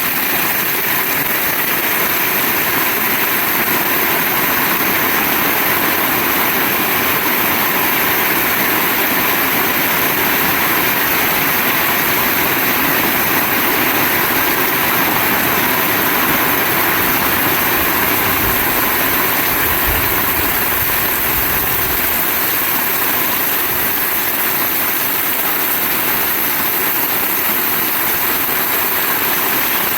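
Heavy rain pouring steadily, a dense continuous hiss, with a brief low rumble about two-thirds of the way through.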